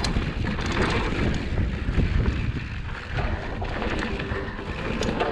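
Wind buffeting the microphone and tyres rumbling over a dirt trail as a mountain bike rides downhill, with scattered knocks and rattles from the bike.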